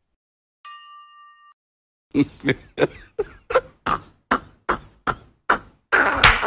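A bell-like notification ding about a second in. From about two seconds, a steady run of sharp knocks follows, roughly two and a half a second, and near the end it turns into a busier, noisier clatter.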